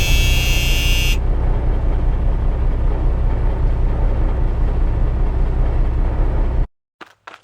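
Earthquake rumble sound effect: a deep, steady rumble, with a high buzzing tone over it for about the first second, that cuts off suddenly near the end. A few faint taps follow.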